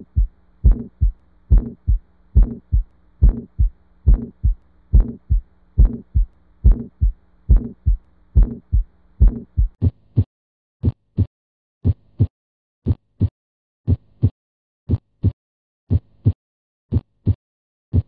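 Recorded heart sounds heard through a stethoscope, steady lub-dub pairs. For the first ten seconds they carry a faint steady hum between the beats: an innocent murmur. After that, normal heart sounds follow, clean lub-dub pairs about once a second with no hum.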